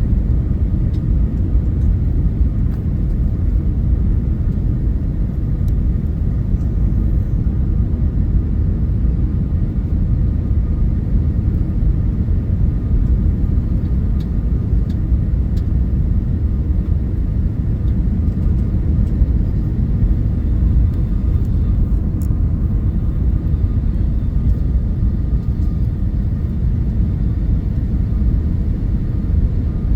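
Boeing 757-200 jet noise: a steady low rumble with a faint, thin, steady whine above it, unchanging throughout.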